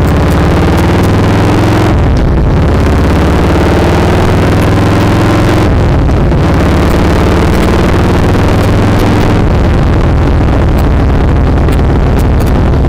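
Harley-Davidson touring motorcycle's V-twin engine running under way. Its pitch climbs, drops at a gear shift about two seconds in, climbs again and drops about six seconds in, then holds steady.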